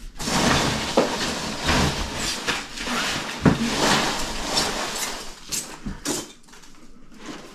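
Rummaging in a large cardboard box of boxed plastic model kits: cardboard kit boxes scraping, sliding and knocking against each other and the carton, with rustling. It eases off about six seconds in.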